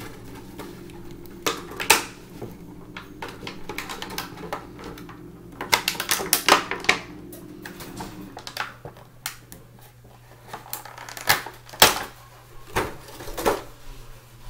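Hands handling and unwrapping plastic toy packaging: a run of irregular clicks, taps and crinkles, busiest about halfway through and again near the end.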